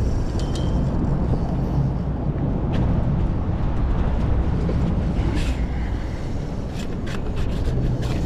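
Steady low rumble of outdoor background noise, engine-like, with a few faint clicks and ticks scattered through it.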